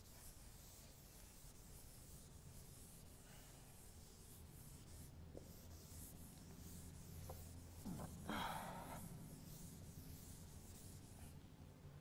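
Blackboard duster rubbing chalk off a chalkboard in faint scratchy strokes over a steady low hum, with one louder wiping stroke about eight seconds in.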